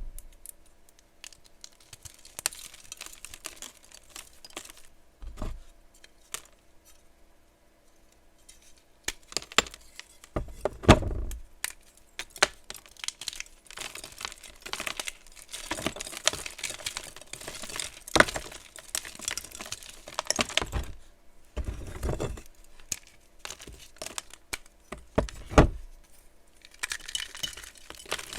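Block of gym chalk being crushed and crumbled, a dense run of crunching and crackling snaps, with a few heavier crunches along the way.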